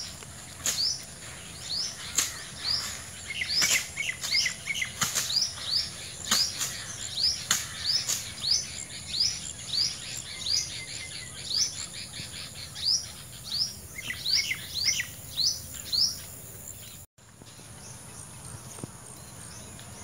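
A bird calling over and over in short, sharp, high notes, roughly one or two a second, over a steady high-pitched hiss. The calls stop abruptly about seventeen seconds in, leaving only faint background.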